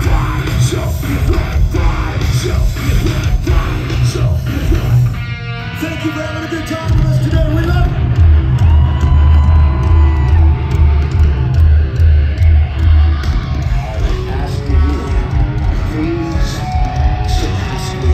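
A nu-metal band playing live through a festival PA, heard from within the crowd: distorted electric guitars, bass and drums with yelled vocals. The music thins out briefly about five seconds in, then comes back in heavier with a pounding low end.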